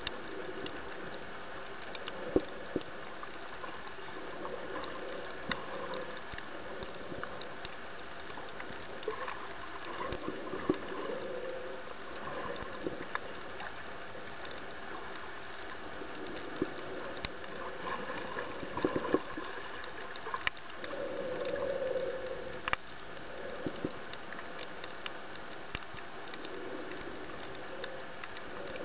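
Underwater ambience recorded through a camera's waterproof housing: a steady hiss with bubbling gurgles every few seconds and a few sharp clicks.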